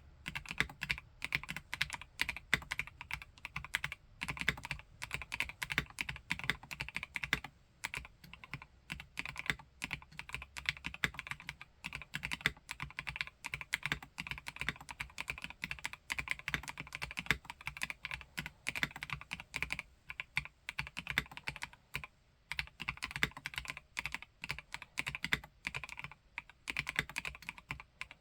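Typing on an Omnitype Bauer Lite 65% mechanical keyboard with a plastic case and Gateron Snow Rabbit switches: a steady stream of fast keystrokes, with a few brief pauses.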